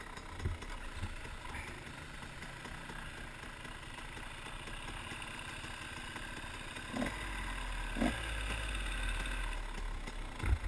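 Dirt bike engine idling steadily. It gets a little louder about seven seconds in, with two short knocks around then.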